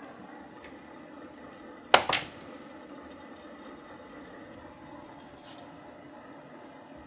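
Steady hiss of a hand-held gas torch flame heating a steel tube to solder a crack. About two seconds in come two sharp metallic clicks in quick succession.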